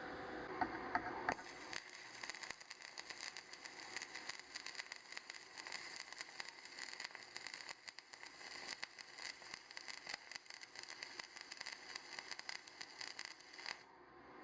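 Stick-welding arc crackling and sizzling: a few sharp clicks as it strikes about a second in, then a steady crackle that cuts off near the end when the arc is broken.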